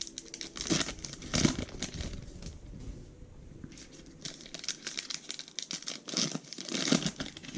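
Baseball card pack wrapper crinkling and tearing in irregular bursts as a pack is handled and opened.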